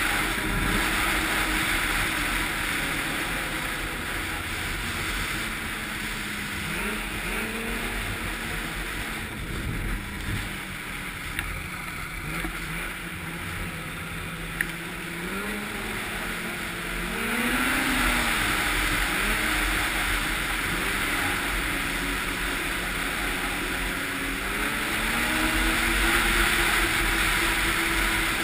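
Snowmobile engine running at speed, its pitch rising and falling with the throttle, over rushing wind noise on the helmet microphone. It eases off for several seconds in the middle and picks up again about seventeen seconds in.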